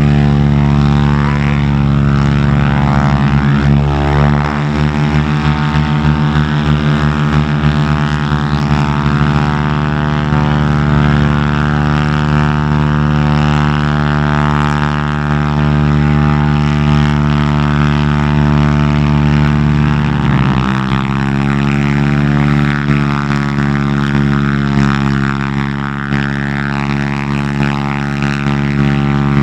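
Radial engines of Harvard (T-6 Texan) trainers, Pratt & Whitney R-1340 Wasps, running up on the ground for pre-flight engine checks, in which the engine is brought to a set speed and switched between its two magnetos. The engine note is steady and loud, with a pulsing beat for a few seconds. Its pitch dips briefly about two-thirds of the way through and then recovers.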